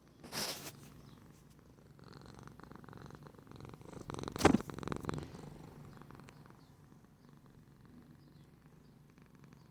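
Canadian Sphynx cat purring, swelling louder midway through and then settling, with a short rustle near the start.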